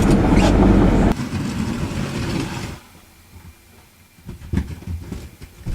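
Vehicle rumbling loudly, falling away in two steps about one and three seconds in. A few knocks and thumps follow.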